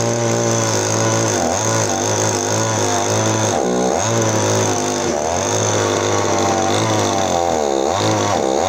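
Gasoline chainsaw running at high revs as it cuts into an areca palm stump, its engine pitch dipping briefly several times and recovering.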